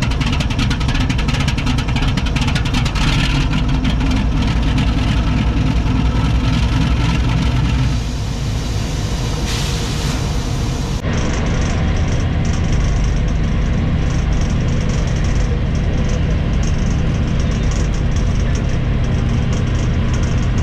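Diesel engine of a GE GEU-40 (ES43ACi) diesel-electric locomotive running steadily, a loud continuous sound with steady low tones. About 11 seconds in the sound changes abruptly to the run heard inside the cab with the train under way.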